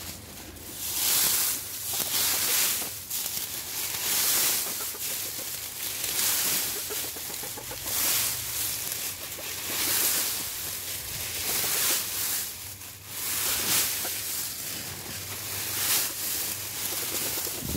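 Dry oak leaves crunching and rustling in repeated swishes, about one every second and a half, as a leaf pile is dug through.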